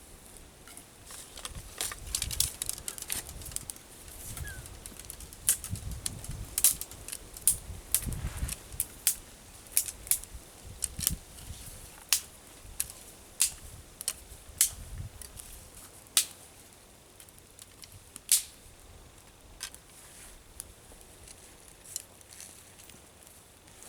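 Wood campfire crackling in a fire pit, with many irregular sharp pops that thin out after about eighteen seconds. Low rumbling is heard under the crackle in the first ten seconds.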